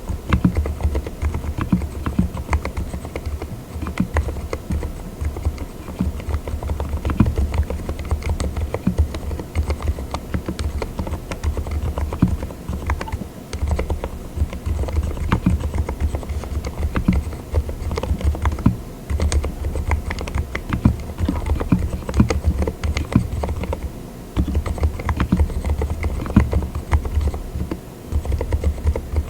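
Fast, continuous typing on a mechanical keyboard fitted with Cotton Candy silent linear switches (36 gf), giving dampened, muffled keystrokes. Short lulls come about 4, 19, 24 and 28 seconds in.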